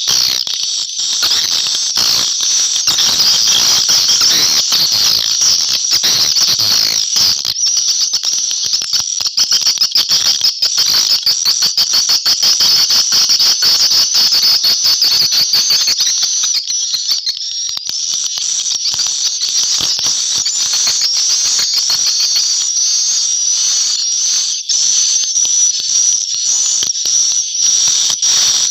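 A flock of swiftlets twittering inside a swiftlet nesting house: a dense, continuous high chirping chatter mixed with rapid clicks, easing briefly about two-thirds of the way through.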